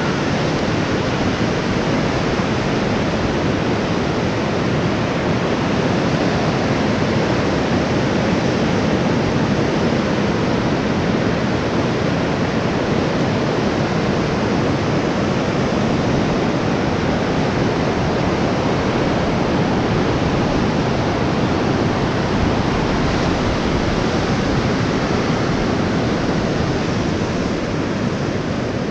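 Steady rush of breaking surf on a beach, with wind blowing across the microphone.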